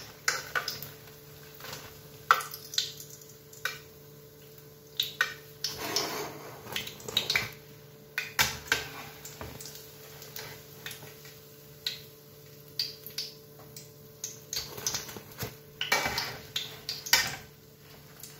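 Metal spoon and fork clinking, knocking and scraping against a frying pan as fried akara (bean fritters) are lifted out of the oil: irregular clicks every second or so, over a faint steady hum.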